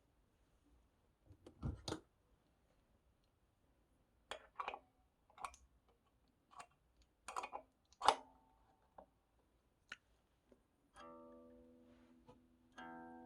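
Scattered sharp clicks and knocks, then about eleven seconds in an electric guitar note is picked and rings out, fading slowly, and is picked again near the end.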